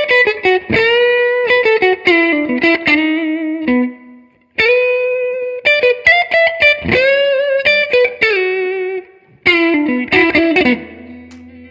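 Electric guitar through a Mad Professor Sweet Honey Overdrive pedal into a Fender Blues Deluxe Reissue amp fitted with a Celestion Creamback G12M-65 speaker, playing overdriven blues lead phrases. The notes are bent and shaken with vibrato, in three phrases with short pauses between them.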